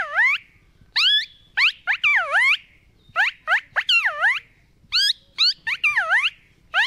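A man imitating the call of a common tailorbird with his mouth: a repeated series of high whistled notes, a few quick rising chirps followed by a longer note that swoops down and back up, about once a second.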